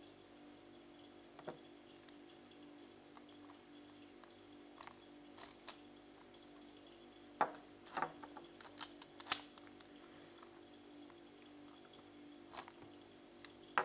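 A few scattered light clicks and knocks of objects being handled, loudest in a cluster between about seven and nine and a half seconds in, over a steady low hum.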